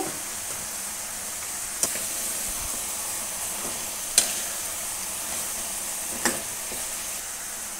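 Chicken, onions and tomatoes sizzling in an aluminium karahi while a metal spoon stirs in ground spices, with three sharp knocks of the spoon against the pan.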